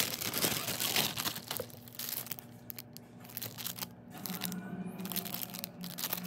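Clear plastic bags crinkling and rustling as they are handled, loudest in the first second or so and lighter after.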